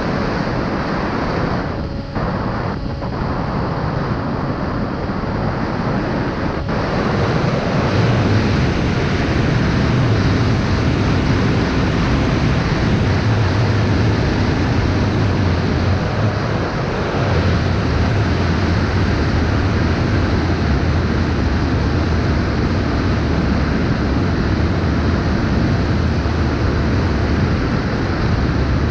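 Loud, steady rushing noise, like wind buffeting the camera microphone, that briefly dips about two seconds in.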